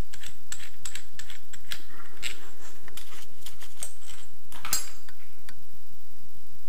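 Small metallic clicks and clinks from handling a chrome mixer tap while unscrewing the nut and washers from its threaded shank. The clicks come thick and fast for the first couple of seconds, then more sparsely, with one sharper clink about two-thirds of the way through.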